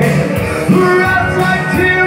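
Rock and roll song through a PA system, with a male singer singing live into a hand-held microphone over guitar-backed music, holding and sliding between notes.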